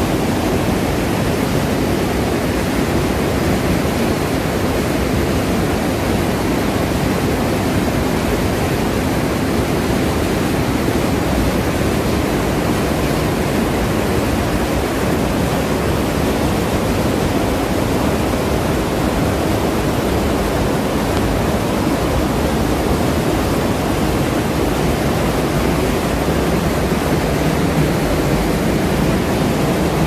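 Waterfall plunging into its rock pool: loud, steady rushing of water churning into whitewater.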